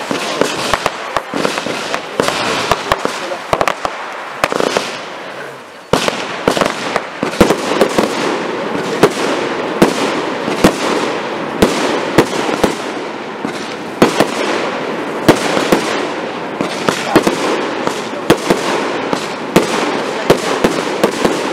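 Fireworks display: a dense, continuous crackle with many sharp bangs of shells bursting overhead. The crackle dies down about five seconds in, then starts again at once with a loud bang and keeps going thick with reports.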